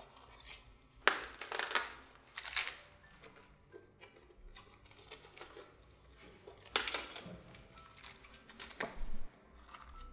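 Napa cabbage leaves being snapped and peeled off the head by hand: several crisp, crackling tears in two clusters a few seconds apart.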